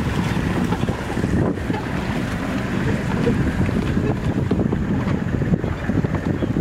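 Wind buffeting the microphone: a steady, loud, low rushing rumble with constant fluttering.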